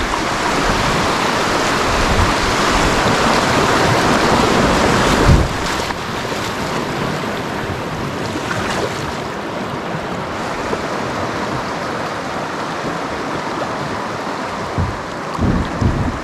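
Rushing river water around a kayak on a stretch of rapids, a steady wash that builds to its loudest about five seconds in and then settles. There are a few low knocks near the end.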